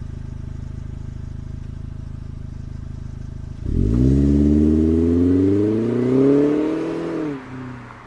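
A motor vehicle's engine running steadily at low revs, then about three and a half seconds in it revs up, its pitch rising for a few seconds before dropping away near the end.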